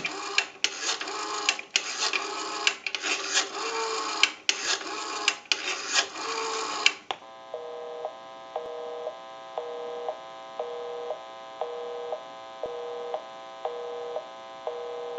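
Telephone line audio as a number is dialed on a Western Electric rotary payphone: hiss broken by irregular clicks. About seven seconds in, a busy signal starts, a two-tone beep that is half a second on and half a second off, because the called line is busy.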